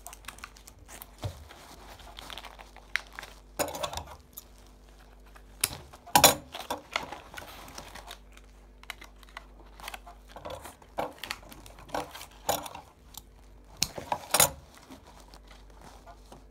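Doll packaging crinkling and rustling in irregular bursts, with short sharp clicks in between, as a doll that is stuck fast is worked free of its box by hand.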